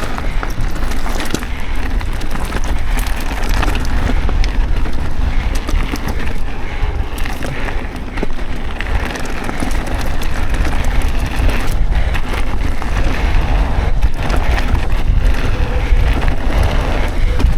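Mountain bike ride on a dirt trail: wind buffeting the camera's microphone as a steady low rumble, with tyre noise and many small clicks and rattles from the bike over rough ground.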